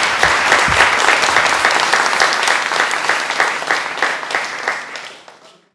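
Audience applauding, a dense steady clatter of many hands that fades out near the end.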